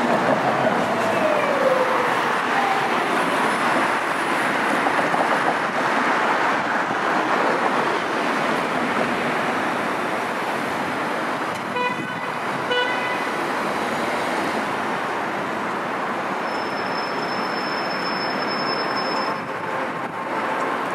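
Busy city street traffic: cars and taxis passing steadily, one falling in pitch as it goes by at the start. A car horn gives two short honks about twelve seconds in, and a thin high whine holds for a few seconds near the end.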